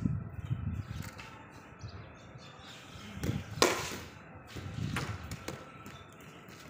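A single sharp knock of a cricket ball impact a little past halfway, with a fainter knock about five seconds in, over low rumbling noise.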